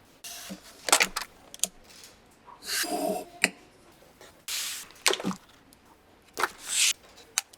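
Kitchen handling sounds: a metal potato masher pressing down on puff pastry, with separate clacks and soft squishing, rustling bursts.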